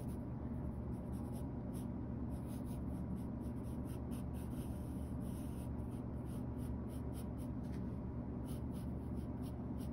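Pencil drawing on sketchbook paper: many short, irregular scratchy strokes of the graphite tip, over a steady low hum.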